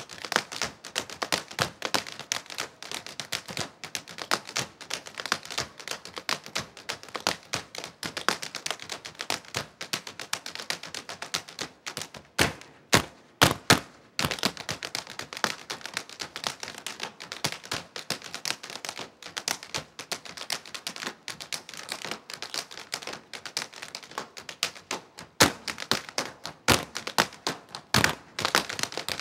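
Irish dancers' shoes clicking and tapping rapidly and rhythmically on a stage, several dancers in step, with a few louder stamps about halfway through and again near the end.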